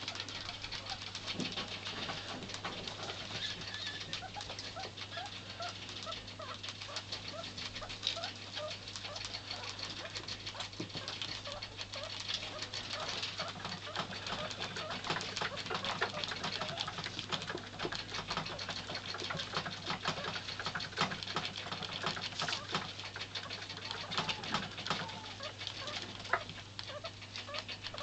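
Several pet rats chewing peas, a steady stream of fast small clicks and crunches, over a low steady hum.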